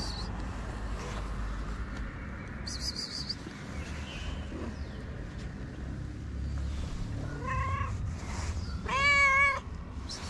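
Tabby cat meowing twice near the end: a short meow, then a longer, louder, wavering one.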